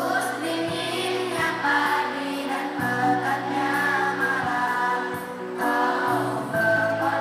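A group of children singing together in unison over instrumental accompaniment, with held sung notes over a steady bass line.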